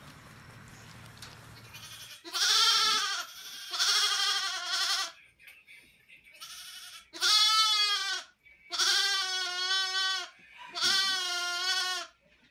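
Young lamb bleating six times in a row, beginning about two seconds in. Each call is long and quavering, and the third is fainter than the rest.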